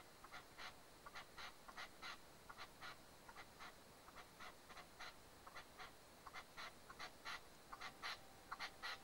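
Red-legged partridge calling: a long run of short, sharp notes, about three a second, faint and growing louder near the end.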